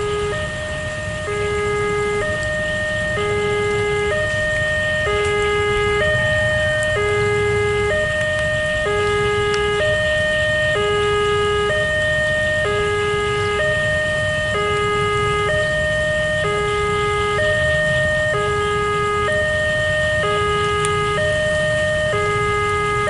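Railway level-crossing warning alarm sounding steadily, an electronic two-tone chime alternating a higher and a lower note about once a second. It signals that the crossing is closed and a train is approaching.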